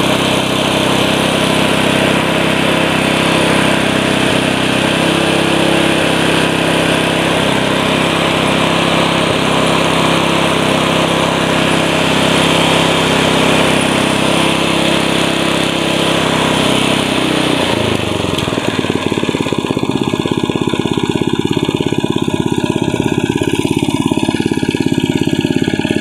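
Honda GX120 single-cylinder four-stroke engine running steadily, back to normal now that the fuel that flooded the cylinder through a leaking carburetor float needle has burned off and the smoke has cleared. About two-thirds of the way through it slows to a lower, pulsing idle.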